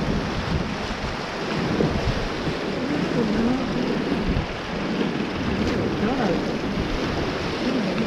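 Fast-flowing river water rushing and splashing around a drifting inflatable raft, with wind buffeting the microphone.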